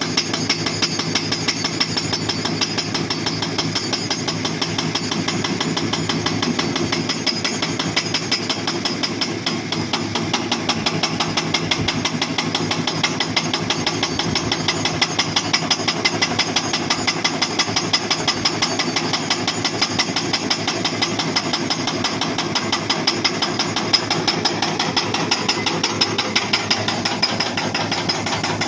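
Hydraulic breaker on a Hitachi Zaxis 240 excavator pounding rock in rapid, steady blows, with the excavator's diesel engine running underneath.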